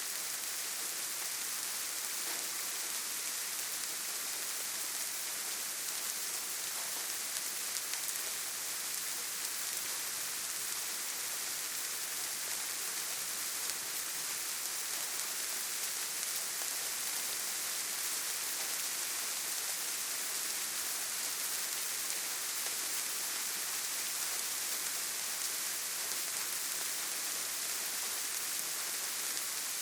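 Steady rain falling, an even hiss strongest at high pitch with a fine patter of drops.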